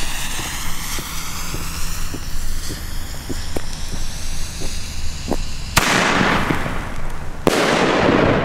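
A single-shot firework bomb tube (shell tube): the lit fuse fizzes with small crackles, then the shell launches with a sharp bang about six seconds in and bursts with a louder bang about a second and a half later.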